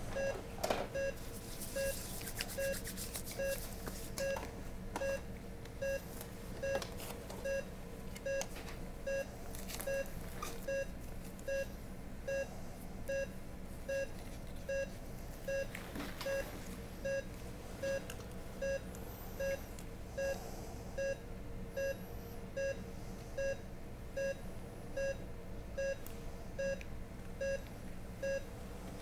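Bedside patient monitor beeping steadily in time with the heartbeat, a short mid-pitched tone a little over once a second, matching a heart rate of about 75. A few faint clicks and a brief hiss from handling lines and equipment.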